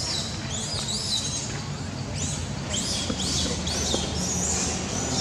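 Bird calling: a rapid run of short, high rising-and-falling notes, about two or three a second, over a steady low background noise.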